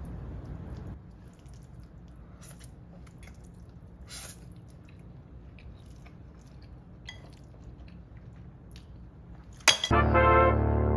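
Wet, sticky sounds of sauce-coated instant noodles being lifted and eaten with wooden chopsticks from a ceramic bowl, with small clicks. The first second is the loudest part. About a second before the end, loud music with brass cuts in suddenly.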